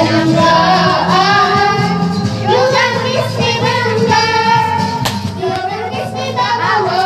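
Young girls singing karaoke into a handheld microphone over backing music.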